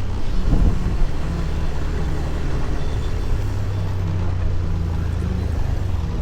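Honda BeAT Street motor scooter's small single-cylinder engine running steadily under way, with a brief rise about half a second in.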